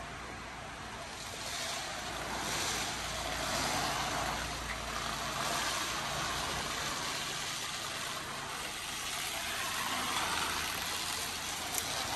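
Steady rushing road and wind noise of a car on the move, swelling and easing gently, with a low engine hum beneath.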